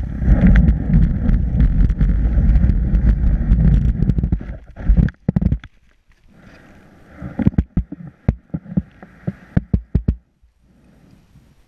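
Skis sliding and scraping over snow, heard from a boot-mounted camera as a loud, rumbling rush full of clicks. It stops about five seconds in. After that come separate sharp knocks and taps as the skier moves on the spot, with the camera mount jolting against the boot.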